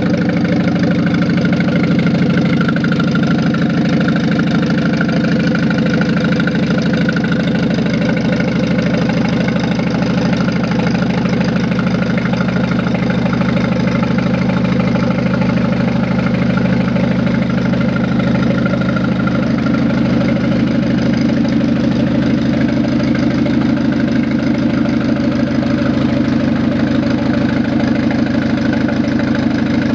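GAZ M-21 inline four-cylinder engine, fitted with 88 mm pistons, idling steadily.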